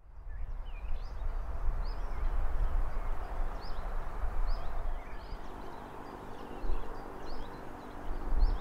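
Outdoor ambience of small birds chirping, many short high calls scattered throughout, over a steady low rumble and soft background noise.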